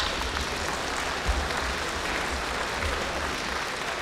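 Arena crowd applauding at the end of a boxing bout, a steady wash of clapping throughout.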